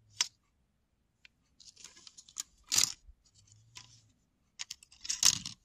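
Hard plastic parts of a disassembled Lyft sign being handled: a few short clicks and scrapes as the plastic LED grille is taken out of the lid and set on the LED circuit board, the loudest about three seconds in and near the end.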